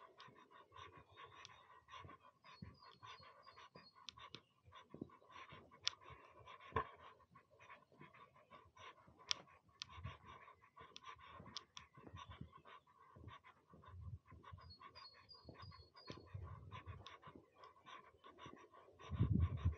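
Faint footsteps and rustling while walking across a grassy meadow, with a bird chirping in short runs of high notes a few times. Low gusts of wind buffet the microphone near the end.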